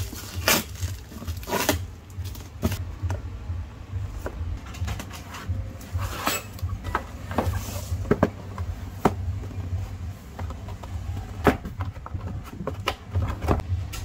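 A cardboard box being slit open and handled: a blade scraping along the packing tape, and the cardboard and its contents being moved, giving an uneven string of clicks, taps and scrapes over a steady low hum.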